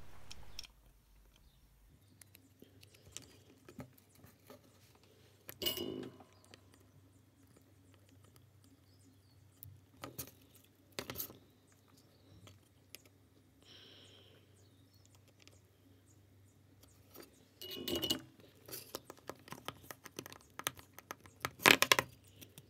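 Scattered small clicks, taps and knocks of a circuit board and its parts being handled and set down on a paper-covered desk, with a few louder knocks, the loudest near the end.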